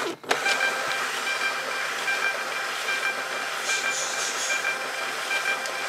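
Printer running as it prints sticker sheets: a steady hiss with a faint two-note whine that breaks off and resumes in short, even steps.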